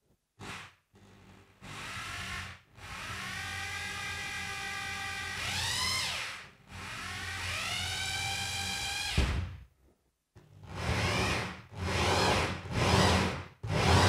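Bosch PBH 2100 corded rotary hammer spinning a 68 mm hole-saw core bit into plasterboard, just scoring the surface. The motor whine climbs in pitch twice as the trigger is squeezed and runs steady, then stops about nine seconds in. It is followed by four short bursts of drilling near the end.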